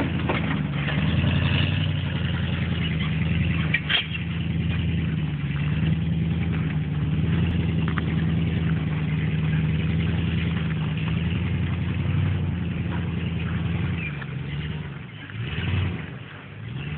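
Pickup truck engine running steadily under load while towing a boat trailer, with one sharp knock about four seconds in. It grows quieter and uneven near the end.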